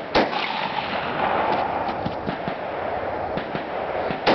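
Two rifle shots from a carbine fired over iron sights at distant steel targets, the first just after the start and the second about four seconds later, with a steady hiss of outdoor background noise between them.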